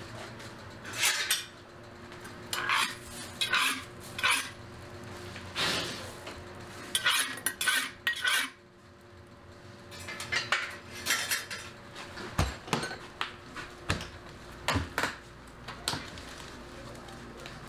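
Clattering of metal kitchenware: a string of irregular short clinks and knocks in clusters, with a few duller thuds near the end.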